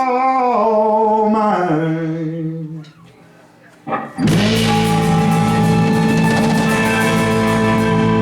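A song performance: a singer holds a few long notes that step down in pitch and fade to quiet about three seconds in, then the band strikes a loud held chord, with an organ prominent, that rings on.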